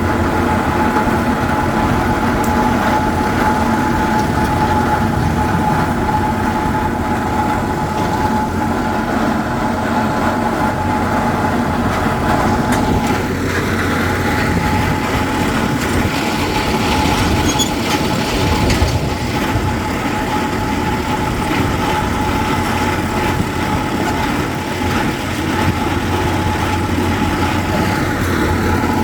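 Hydraulic rock drill boring into rock: loud, continuous percussive hammering over a steady engine drone, with a steady whine.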